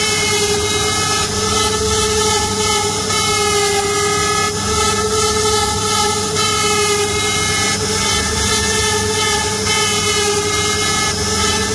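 CNC router spindle running with a steady whine as its small carving bit mills a relief pattern into a wooden panel, over an even hiss of cutting.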